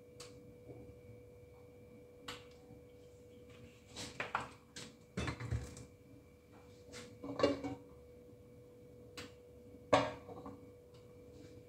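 Scattered knocks and clinks of kitchen handling: a plastic oil bottle being set down and an aluminium pot being shifted on the stovetop, the loudest knock about ten seconds in. A faint steady hum runs underneath.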